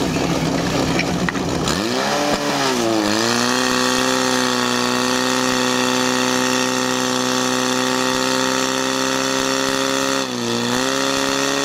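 Portable fire pump engine running at full throttle during a firefighting-sport attack. It starts at a low rumble and is revved up about two seconds in to a high, steady pitch as the pump drives water into the hoses. The pitch dips briefly twice, just after three seconds and again about ten seconds in.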